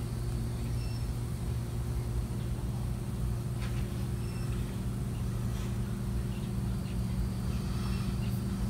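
Steady low mechanical hum, with a few faint short high chirps over it.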